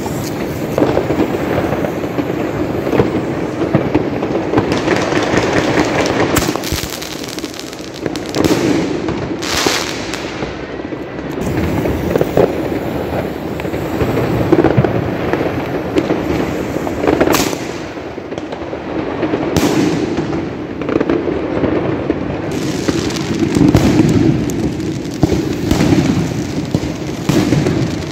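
Dense, continuous fireworks and firecrackers going off all around: a steady rattle of overlapping bangs and crackling. Several louder single reports stand out through it.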